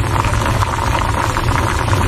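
Pot of pork adobo boiling hard as the sauce reduces, with a dense run of bubbling pops and crackles over a steady low rumble.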